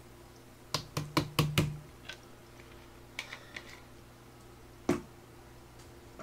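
Plastic makgeolli bottle being handled. A quick run of sharp clicks comes in the first two seconds, fainter small clicks follow as the cap is twisted on, and a single knock about five seconds in as the bottle meets the table.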